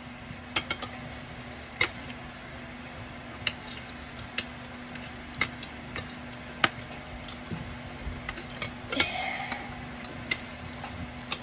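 Metal spoon clinking and scraping against a glass bowl in scattered sharp taps while scooping food, over a steady low hum.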